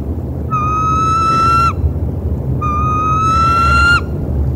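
Tree limbs rubbing together, letting out two long, high squeals that rise slightly in pitch and end abruptly, over a steady low rumble.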